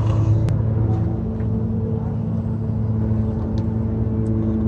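A steady low mechanical hum, even in pitch, like an idling engine, with a few faint clicks over it.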